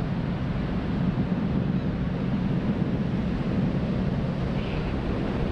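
Steady low drone of a formation of four SNJ Texans' Pratt & Whitney R-1340 Wasp radial engines and propellers, heard from far off.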